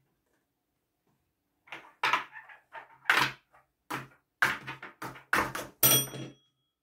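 Hard plastic cups clacking and knocking on a tabletop as they are snatched up and stacked fast, a quick run of sharp knocks. Near the end a tap-style desk bell is struck once and rings briefly, the signal that a player has built the card's pattern first.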